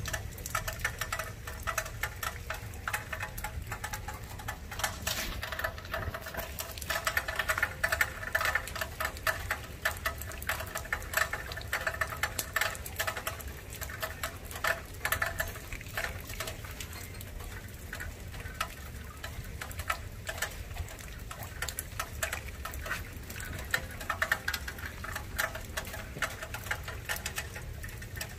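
Rain falling steadily, its drops pattering in a dense run of quick, uneven ticks on nearby surfaces.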